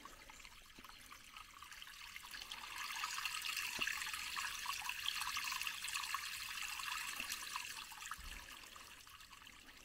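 A small trickle of creek water running and seeping through the stones of a rock leaky weir. The sound is faint and steady, growing louder for a few seconds in the middle, then fading near the end.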